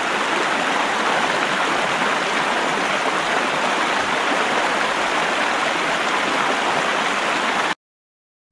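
Steady rushing sound like running water, with no music. It cuts off abruptly about a second before the end.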